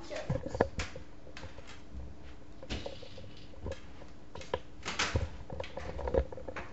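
Irregular soft knocks and clicks of movement indoors, footsteps and phone handling, over a faint steady hum.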